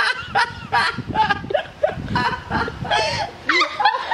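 People laughing hard in quick, repeated bursts.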